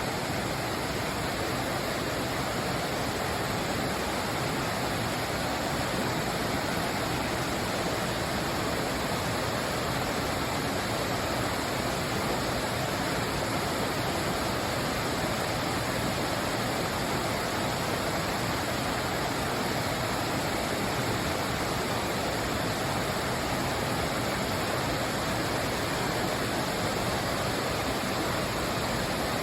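Waterfall at Dukes Creek Falls rushing in a steady, unbroken roar of falling water, running high with heavy flow after overnight rain.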